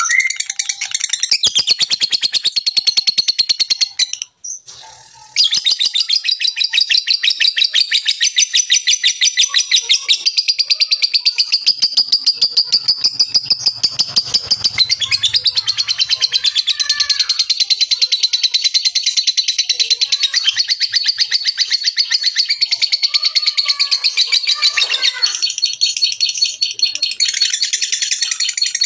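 Lovebird giving a long, very fast chattering trill of rapid high ticks (the 'ngekek' call), breaking off briefly about four seconds in and then running on unbroken.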